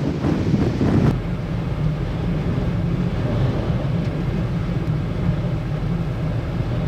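Strong storm wind buffeting the microphone. About a second in it drops suddenly to a steady low rumble.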